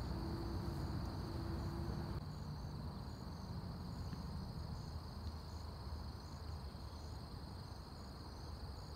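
Crickets and other insects trilling in a steady high drone, with short chirps repeating about twice a second, over a low rumble. A steady low tone sounds for the first two seconds.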